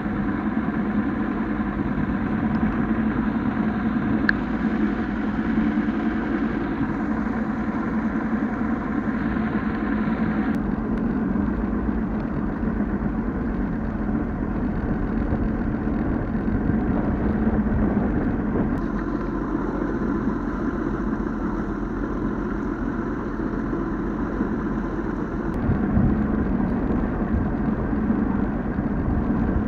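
Bass boat's outboard motor running steadily under way, with water and wind noise over it.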